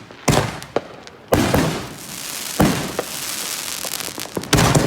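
Fireworks going off: about four loud bangs in under five seconds, with a steady hiss running between the second bang and the last.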